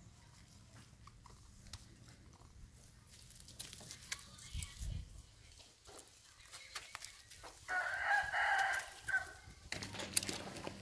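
A rooster crowing once, a pitched call lasting about two seconds near the end, over faint scattered clicks and rustles.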